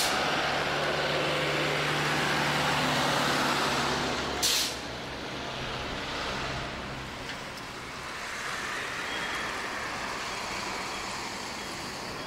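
Heavy lorries driving past with their diesel engines running, then a short sharp air-brake hiss about four and a half seconds in. After it the sound drops to a fainter, steady background rumble.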